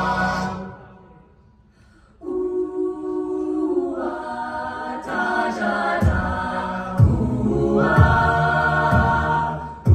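A cappella group singing through microphones: a chord dies away within the first second, a short silence, then the voices come back in at about two seconds with a held chord. From about six seconds a low vocal bass and vocal percussion beat join in, about one beat a second.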